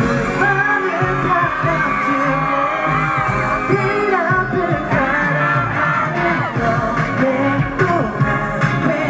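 K-pop song performed live: a boy group singing, with long held notes, over a pop backing track with a steady beat, played through a concert sound system.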